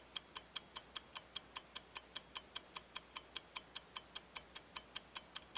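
A watch ticking steadily, about five quick, even ticks a second.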